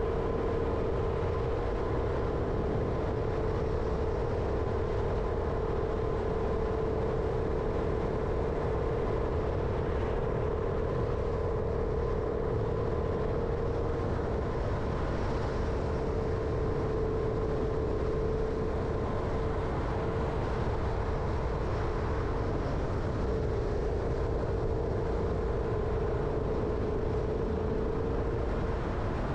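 Jeep Renegade driving steadily: engine and tyre noise with a steady hum that holds one pitch throughout.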